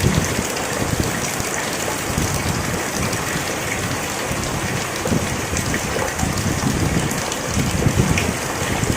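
Heavy rain falling steadily: a dense, even hiss with a low patter of drops.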